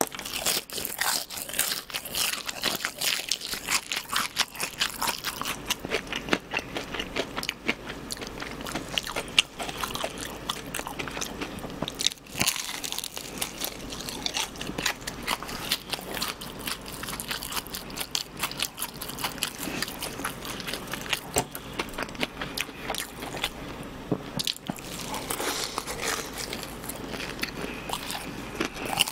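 Close-miked crunching and chewing of crispy fried chicken: repeated bites into the battered crust, with dense crackling that thins out somewhat after the first half.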